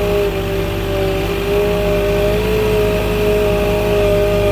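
Engine running at a steady speed, a continuous drone whose pitch shifts slightly up and down.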